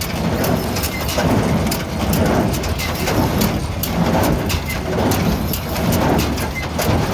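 Bobcat CT2025 diesel compact tractor running a New Holland 268 small square baler empty through its PTO: a steady engine drone under the baler's mechanical clatter and clicking, swelling in a rhythm about once a second.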